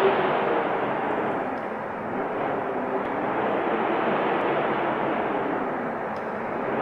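Strong wind rushing and gusting, swelling and easing slowly in a deep, steady roar.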